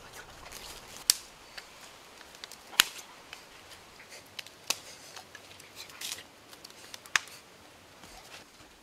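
Small twig campfire crackling: four sharp pops spread a second or two apart, with soft rustling of leaves between them.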